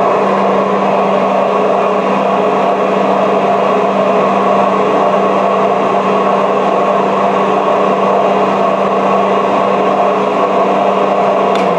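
A JMT HB200 welding positioner's drive motor and gear reducers run with a steady hum while the table tilts, then cut off near the end.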